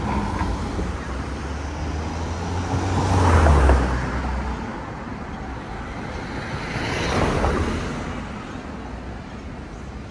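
Road traffic: two vehicles pass close by, one building to a peak about three and a half seconds in with a low engine hum, the other about seven seconds in.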